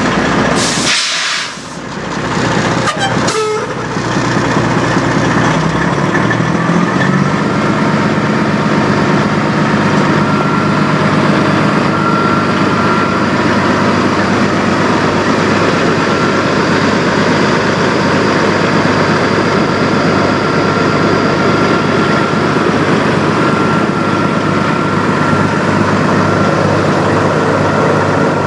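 Peterbilt semi truck's diesel engine running, with a sharp burst of air hiss about a second in. About six seconds in the engine speed rises a little and then holds steady.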